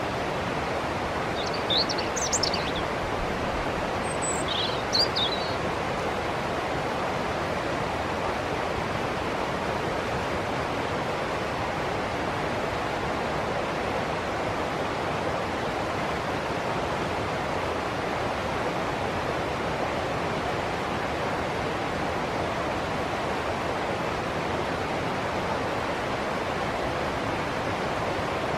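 Steady rushing of a river's flowing water, with small birds chirping briefly twice in the first few seconds.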